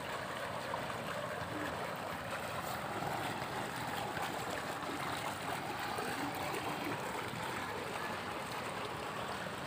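Steady splashing and rushing of water from a swimming pool's fountain jet.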